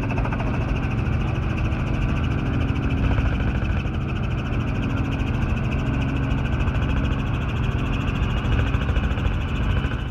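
Helicopter engine and rotor running, heard from inside the cabin: a loud, steady drone with a fine rhythmic chop.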